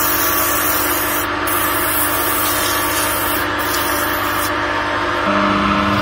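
Sandpaper rubbing against a linden-wood workpiece spinning on a wood lathe: a steady hiss that eases off briefly twice, over the lathe motor's hum.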